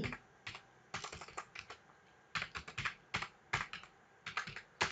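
Typing on a computer keyboard: irregular runs of quick key clicks, with a short pause about two seconds in.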